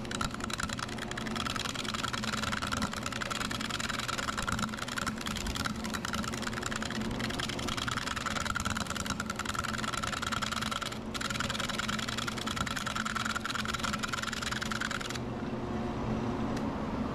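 Gouge cutting a spalted, punky wood blank spinning on a Grizzly wood lathe at about 600 rpm: a steady scraping hiss of the tool over the lathe motor's hum. The cutting stops about fifteen seconds in, leaving only the hum of the lathe.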